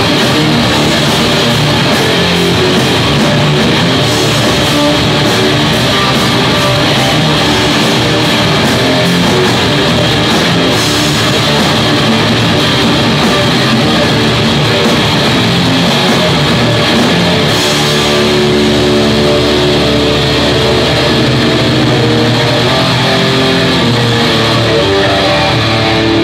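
A live rock band playing loud: distorted electric guitars, bass guitar and a drum kit.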